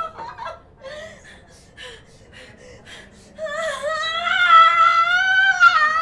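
A woman crying out in labour pains: short gasping, whimpering sounds, then from about halfway a long, high, wavering wail.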